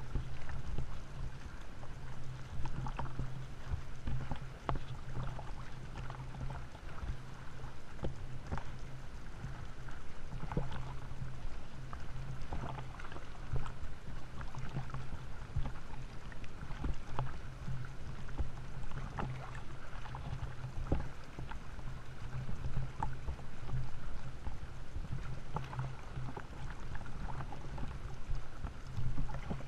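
Sea water splashing and sloshing around a camera held at the surface during front-crawl swimming, with repeated splashes from arm strokes about once a second, over a low steady hum.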